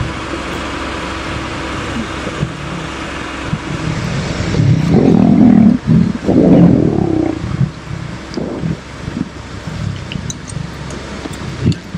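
A vehicle engine idles steadily, then lions give loud, rough growls at a fresh kill, loudest from about five to seven and a half seconds in, with shorter growls after.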